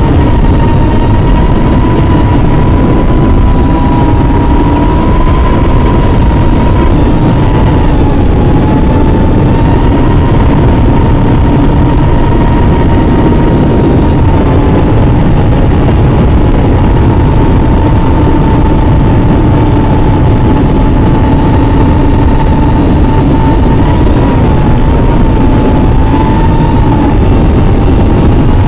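Brushless motors and propellers of a 3-inch FPV racing drone in flight: a steady whine that wavers slightly in pitch with throttle, heard through a low-fidelity onboard audio feed under a loud rushing noise.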